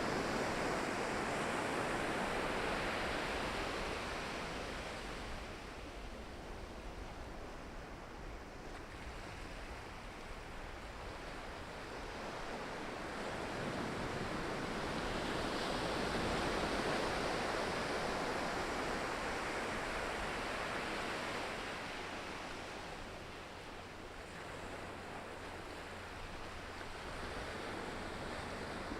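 Ocean waves breaking and washing on the shore, the surf rising and falling in long slow swells, with the sea's low rumble underneath.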